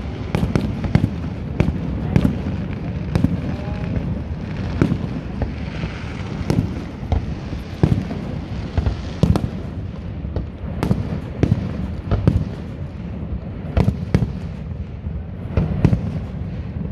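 Aerial fireworks shells bursting in an irregular string of sharp bangs, one or two a second, over a steady low rumble.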